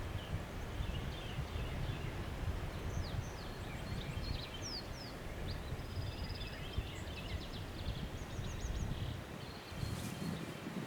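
Outdoor ambience: a low, uneven rumble of wind on the microphone, with small songbirds chirping faintly in the background, giving short rising and falling chirps and a couple of quick trills midway through.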